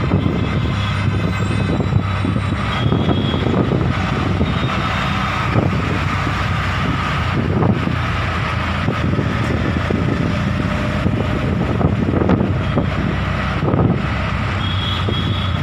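Auto-rickshaw engine running steadily with road and traffic noise, heard from inside the open-sided cabin.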